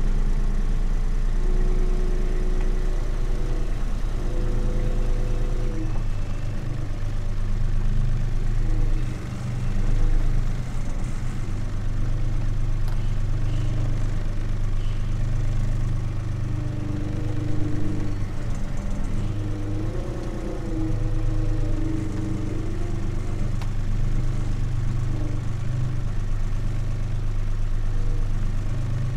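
Diesel engine of a farm machine running steadily at a low speed. A higher tone above it comes and goes and changes pitch several times.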